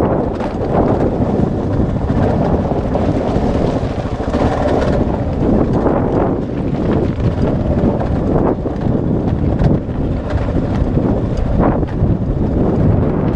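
Wind buffeting the camera's microphone over the running of a Kawasaki KLR650's single-cylinder engine as the bike rolls over loose rock, with scattered short knocks.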